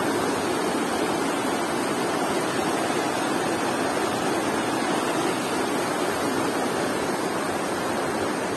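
Shallow, fast river rushing over a stony bed in small rapids: a steady, even rush of water.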